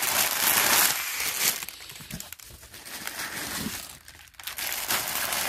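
Clear plastic packaging bags crinkling as they are handled. The crinkling is loudest for the first second and a half, dies down, and picks up again near the end.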